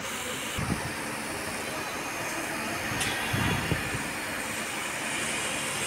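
High-pressure water jet hissing steadily as it washes the surface layer off a freshly cast concrete T-girder (scabbling, to roughen it so the later deck slab bonds well). A few low thumps come in about a second in and again around three and a half seconds.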